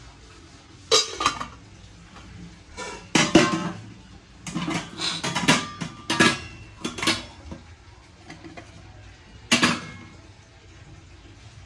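Brass kitchen utensils clanking and knocking against each other as they are handled, some knocks leaving a short metallic ring. The clanks come in a string of separate knocks, the loudest about three seconds in.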